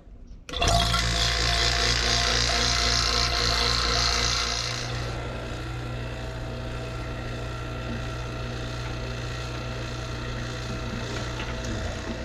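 Refrigeration vacuum pump switching on about half a second in and running steadily while it evacuates a newly installed air-conditioning condenser and line set. A loud rush of air from its exhaust dies down after about four seconds, leaving a steadier motor hum as the system pulls down into vacuum.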